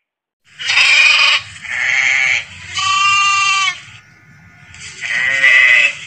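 Sheep bleating four times, each call about a second long.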